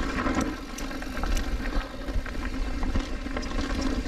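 Mountain bike rolling down a dirt and rock trail: steady tyre and wind rumble with scattered sharp clicks and rattles from the bike.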